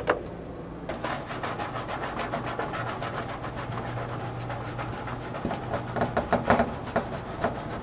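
Gorilla tape being pulled off its roll: a rapid, crackling rasp of many quick clicks that runs for several seconds, over a steady low hum.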